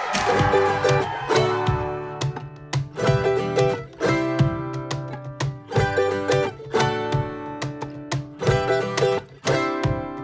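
Music led by plucked string instruments playing rhythmic chords over a bass line.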